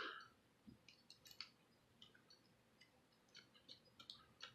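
Faint, scattered small clicks of a paracord bracelet being handled and its clasp worked while it is fitted around a wrist.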